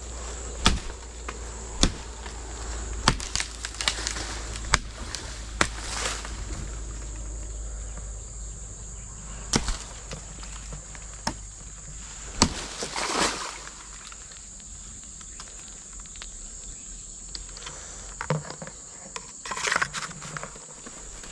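A steady high-pitched insect drone, with sharp snaps and knocks every second or so for the first half and a short cluster of them near the end.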